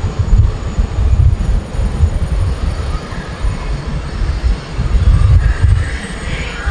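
Boeing 747-8's four GE GEnx jet engines rumbling loudly and unevenly as the airliner rolls out along the runway after landing, with a faint high engine whine above the rumble.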